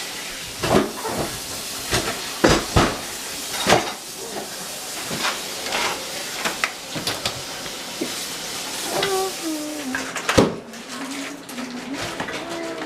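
Pots and cooking utensils clanking and knocking at a stove, several sharp strikes at irregular intervals over a steady hiss of cooking.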